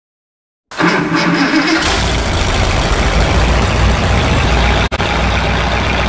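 Car engine starting up after a short silence and then running steadily with a low rumble, cutting out for an instant about five seconds in.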